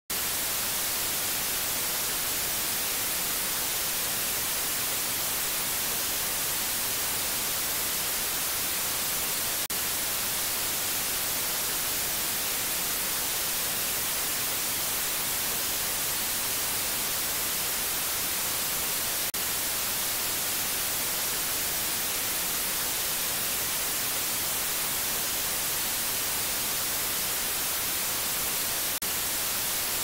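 Steady white noise: an even, unchanging hiss, strongest in the highs, with a brief faint break about every ten seconds.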